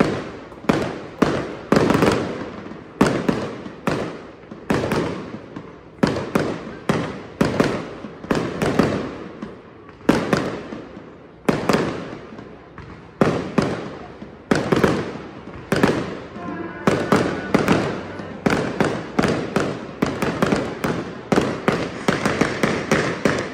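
Aerial fireworks show: shells bursting one after another, sharp booms about one or two a second, each trailing off in an echo.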